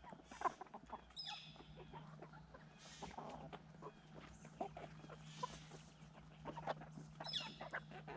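Domestic hens clucking, with two short high calls, one about a second in and one near the end, over many small taps and scratches. A steady low hum runs underneath.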